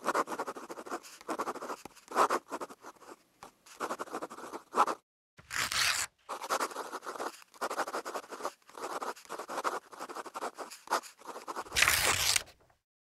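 Scratchy strokes of a pen writing on paper, in short irregular runs. Two louder swishes come, one about halfway through and one near the end.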